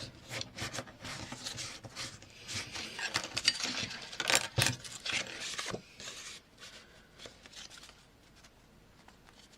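Paper and craft tools handled on a work table: rustling, rubbing and small knocks that stop about two-thirds of the way through.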